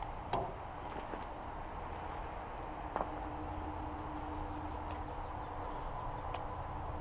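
Steady low outdoor background rumble with a faint constant hum. Two light knocks come through it, one just after the start and one about three seconds in.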